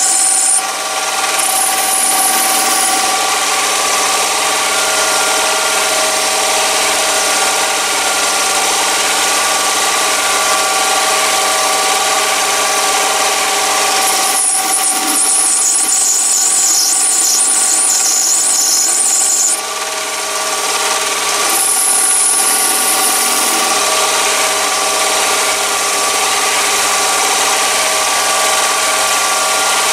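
Chinese mini lathe running with a steady motor whine while a carbide insert on a ball turning attachment cuts a concave radius into a brass bar. A high-pitched cutting noise comes and goes in stretches; the longest begins about halfway in and lasts about five seconds.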